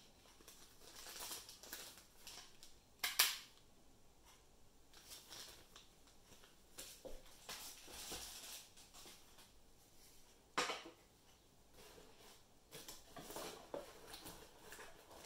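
Plastic packaging crinkling and rustling as items are unwrapped and handled in a cardboard box, with a sharp knock about three seconds in and another about ten and a half seconds in.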